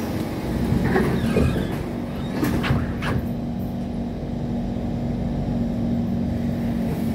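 Sliding doors of a Kawasaki C151 MRT train closing, with a clatter about a second in and two sharp knocks near three seconds as they shut, followed by a steady low electric hum from the train's equipment while it stands at the platform.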